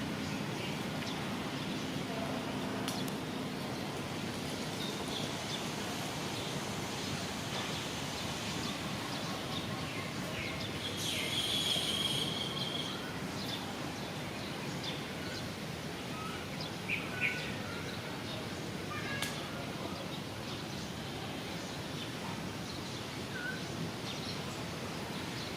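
Steady wind noise with a rustling hiss, and scattered short bird chirps over it; one louder, higher call comes a little before halfway, and two brief sharp sounds follow a few seconds later.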